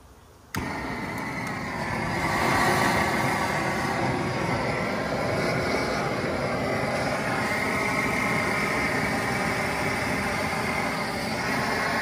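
Sear Pro S.A.F.E. propane searing torch on a small propane tank, switched on with a click about half a second in and then running at full flow as a loud, steady rush of gas.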